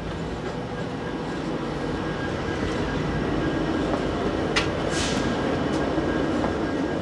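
Steady mechanical hum inside a parked passenger railcar running on shore power, from its onboard equipment, slowly getting louder. A couple of sharp clicks and a short hiss come about four and a half to five seconds in.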